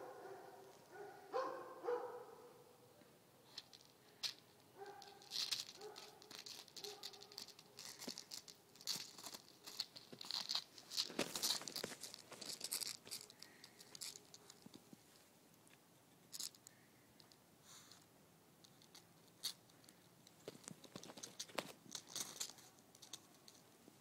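A schnauzer's paws crunching and scratching on icy, crusted snow as it walks and noses about, in irregular bursts that are busiest in the middle.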